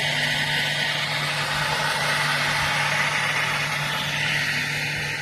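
Off-road vehicle engine running steadily: an even low hum under a wash of noise.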